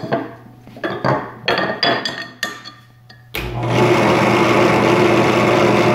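Drill press running as a makeshift wood lathe, its motor humming steadily. A few short, sharp knocks and rustles come in the first three seconds. About three and a half seconds in, a hand chisel bites into the spinning wooden block, and a loud, steady, rough cutting noise continues as the block is turned down.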